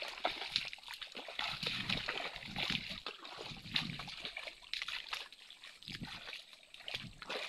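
Footsteps squelching and splashing irregularly through wet mangrove mud and shallow water.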